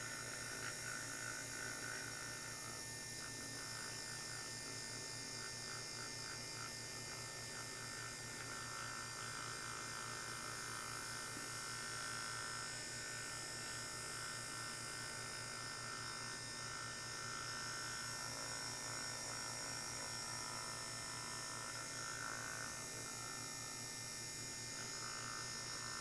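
Small permanent-magnet DC motor running steadily with an even, continuous whine.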